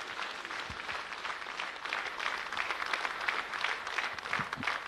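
Large seated audience in a grandstand applauding steadily, many hands clapping at once.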